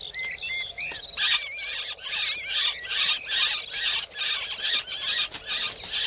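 Common kestrel nestlings squabbling at the nest during a feeding: wavering whistled notes, then from about a second in a steady run of harsh cries, two or three a second, mixed with wing flapping.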